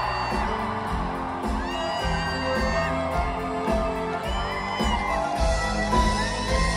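Live band music heard from the stands of an arena: a singer holding and bending notes over steady bass and accompaniment, with scattered whoops from the crowd.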